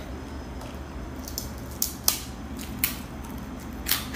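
Crisp chicharon (deep-fried pork cracklings) crunching as they are bitten and chewed: several sharp, irregular crunches, the loudest about two seconds in, over a steady low hum.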